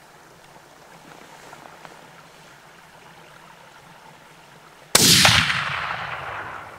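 A single rifle shot about five seconds in, its report trailing off in a long echo that fades over about two seconds.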